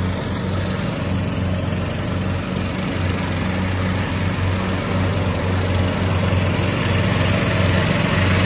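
A steady engine drone: a low hum over an even rushing noise, unchanging throughout.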